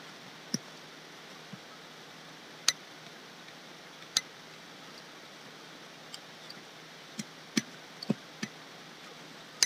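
Scattered light clicks and taps over a faint steady hiss, the two loudest about a third and halfway through: the sound of drawing on a computer with stylus, mouse and keys.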